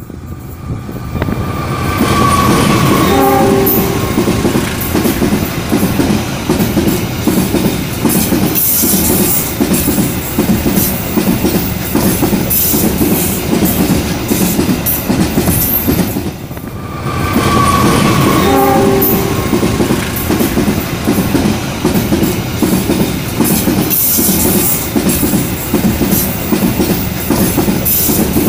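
A train passing close by: its horn sounds, then a steady rumble with wheels clattering over the rail joints. After a brief drop in level partway through, the horn sounds again and the rumble and clatter carry on.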